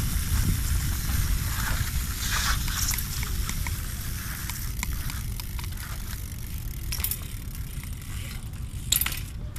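BMX bike riding over wet stone paving: a steady low rumble of the tyres rolling, with scattered light clicks from the bike and a sharper click near the end.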